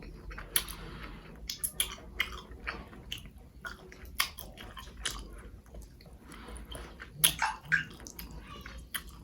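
Close-miked eating sounds: chewing and wet mouth smacks while eating spicy Korean instant noodles, with irregular sharp clicks scattered throughout.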